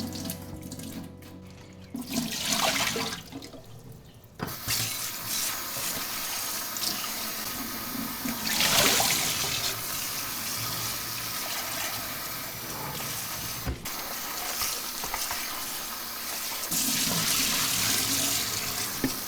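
Water running from a kitchen tap: a first gush about two seconds in, then a steady stream from about four seconds on, swelling louder twice.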